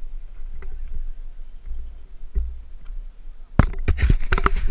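Mountain bike rolling over a gravel dirt track, with a low wind rumble on the microphone and scattered light ticks. About three and a half seconds in comes a run of loud clattering knocks and crunches.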